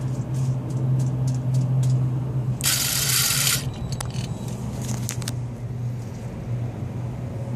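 Electronic VGT turbo actuator, off the turbo, being driven through its installation routine: scattered small clicks, with about a second of whirring a little before the middle, over a steady low hum.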